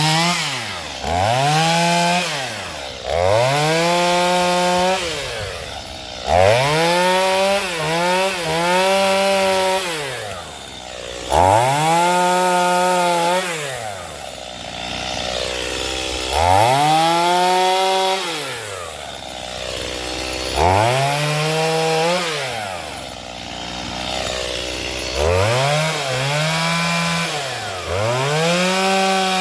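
Two-stroke Stihl MS210 chainsaw with an 18-inch bar cutting wood. It revs up to full throttle and is held high in the cut for a second or two, then drops back to idle, about nine times over.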